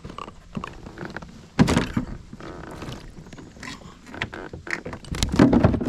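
Scattered knocks and thumps against a kayak's hull and gear while a caught catfish is handled, the loudest about a second and a half in and a cluster near the end.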